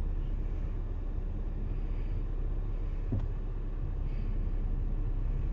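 Car engine and road noise heard from inside the cabin as the car moves slowly in traffic: a steady low rumble, with a single brief click about three seconds in.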